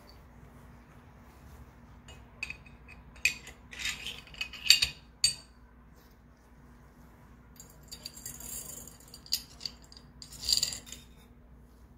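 Steel parts of a Colt Series 70 .45 pistol clicking and clinking against each other and the tabletop as the barrel, recoil spring and guide rod are fitted into the slide during reassembly. Two bursts of sharp metal clicks with a pause between, the second with a short rattling scrape.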